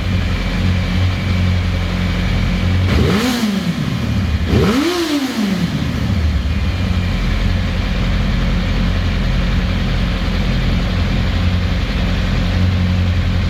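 2007 Yamaha YZF-R1's inline four-cylinder engine idling with a rough, unsteady idle. About three and five seconds in, the engine speed rises briefly and falls straight back, then it settles to a steady idle.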